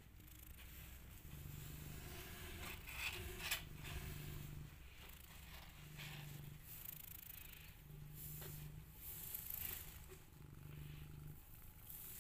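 Kitten purring, a low hum that swells and fades about every two seconds. Scratching and rustling of paws on cloth and cardboard, loudest a few seconds in.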